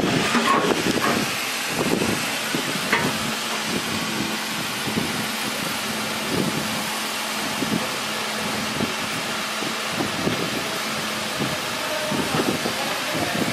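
Steady machinery hum and hiss, with a few light knocks of a stainless steel chute being handled and fitted onto the machine.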